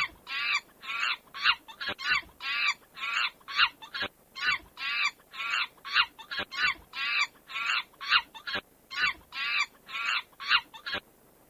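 Monkey screeching: a rapid run of short, high-pitched calls, two or three a second, that stops shortly before the end.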